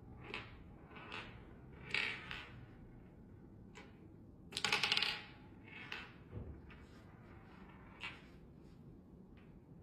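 Marbles running down a marble run: scattered clicks and clacks at irregular intervals as they roll and drop along the track, with a louder rattle of several quick clacks about halfway through.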